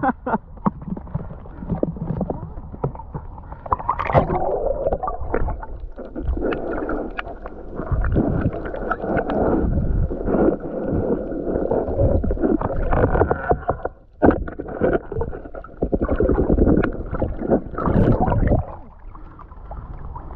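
Shallow sea water sloshing and gurgling around a spearfisher moving through it, in uneven surges with many small knocks. There is a brief lull about fourteen seconds in.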